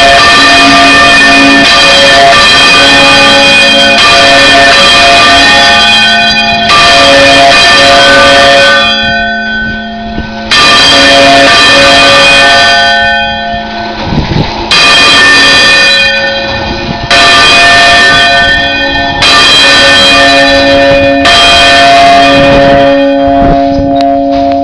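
Three church bells swung full circle on counterweighted wooden yokes in the Spanish volteo style, very loud and close, several ringing tones overlapping. A fresh clapper strike comes every two seconds or so over the sustained ring.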